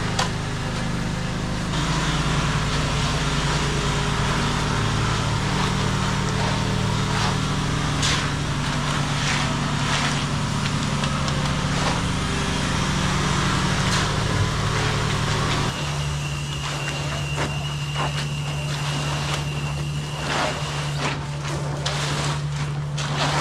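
A motor vehicle or machine engine running steadily. Its note shifts about two seconds in and again near sixteen seconds, and a thin high whine rides over it for several seconds after the second change. Scattered knocks and clanks are mixed in.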